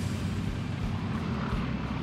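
Boeing B-17G Flying Fortress's four Wright R-1820 Cyclone radial engines droning steadily as the bomber flies away low over the airfield.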